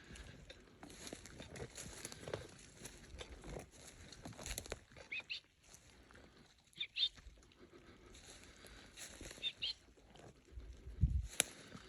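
Faint, irregular footsteps and rustling on the forest floor, with a few brief high squeaks and a louder thump near the end.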